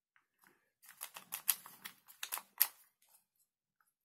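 A quick run of plastic clicks and rattles as a cordless drill's Li-ion battery pack is pushed and worked into the drill's handle, lasting about two seconds. No motor sound follows.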